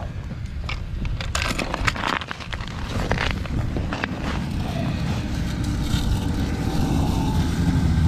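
Wind rumbling on the microphone, with crackles and clicks as the tip-up's fishing line is handled by hand. A low drone comes in near the end.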